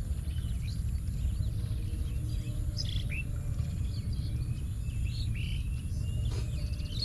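Small birds chirping and calling, short chirps scattered throughout with a few gliding calls, over a steady low rumble.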